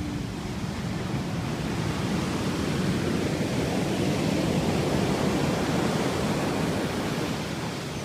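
Pacific surf breaking and washing up a beach: a steady rushing noise that swells a little toward the middle and eases near the end.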